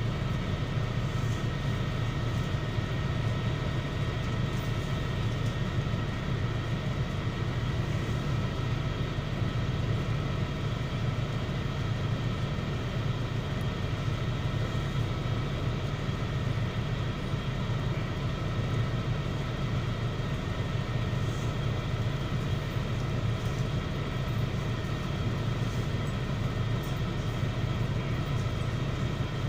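MAZ-103 city bus heard from inside while driving: a steady low drone from the engine and running gear, with faint steady whining tones above it.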